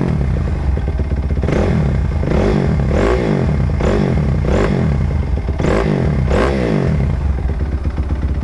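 2006 Suzuki RM-Z250's 250 cc four-stroke single-cylinder engine running and revved repeatedly in short blips, about one a second, with the throttle snapped open and let back to idle each time.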